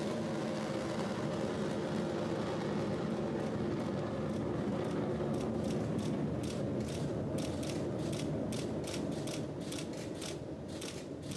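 Ariane 5 ECA rocket climbing just after liftoff, its Vulcain 2 main engine and two solid boosters firing: a steady rumbling exhaust noise. From about halfway on, sharp irregular crackles come through it several times a second.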